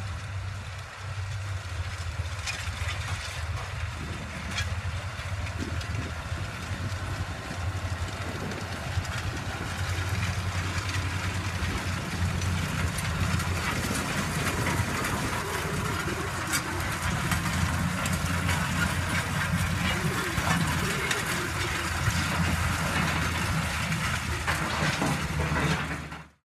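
Two farm tractors' diesel engines running steadily under load while towing cultivating implements across loose soil, with a low hum that grows louder as they draw near; the sound cuts off just before the end.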